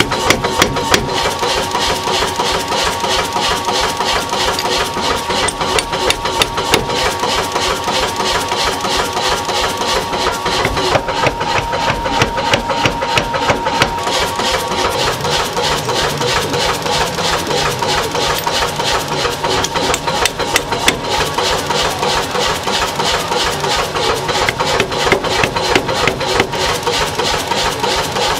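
Mechanical power hammer (maglio) running and striking red-hot iron held in tongs on its anvil, a fast, steady run of repeated blows over the machine's running drive.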